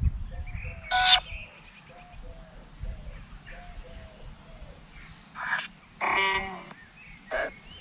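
Spirit box sweeping through radio stations: a regular chirping pulse about twice a second, with short snatches of broadcast sound breaking through about a second in and several times near the end.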